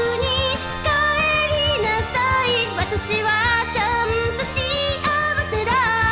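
Female vocalist singing an upbeat Japanese pop song over a backing track.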